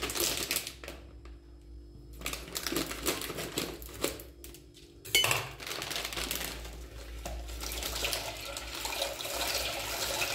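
A plastic bag of dry penne crinkled in the hands, a sharp knock about five seconds in, then the pasta poured into a pot of salted water heating toward the boil, with a steady watery hiss that grows louder near the end.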